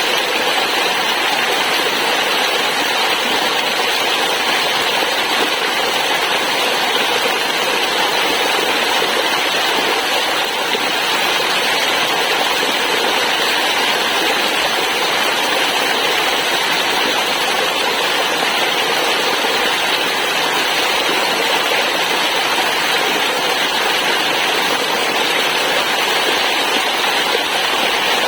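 Waterfall: water falling and rushing in a steady, unbroken stream of noise.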